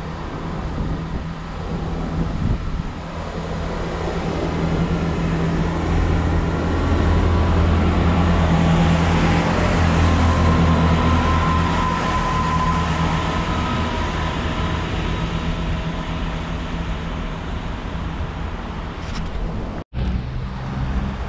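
A Great Western Railway diesel multiple unit running past along the platform, its underfloor diesel engines droning. The drone swells as the train comes up, is loudest as it goes by about halfway through, then eases off as it runs away.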